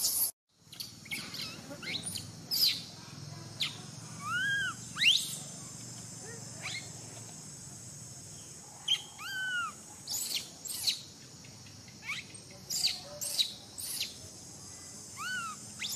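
High-pitched animal calls: many short sharp chirps and several arching, whistle-like cries that rise and fall, scattered throughout, over a steady high insect drone. The sound cuts out briefly about half a second in.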